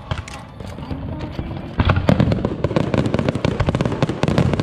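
Fireworks display with shells bursting and rapid crackling. It is lighter at first, then a dense volley of bangs begins about two seconds in and keeps going.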